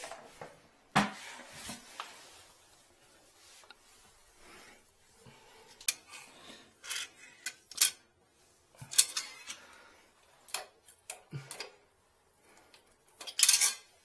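Irregular clicks, knocks and short scrapes of hands and tools handling a porcelain toilet, with a longer scraping rustle near the end.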